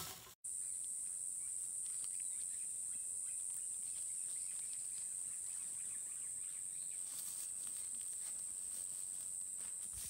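Steady, high-pitched drone of cicadas, starting after a momentary dropout just at the beginning, with a few faint crackles about seven seconds in.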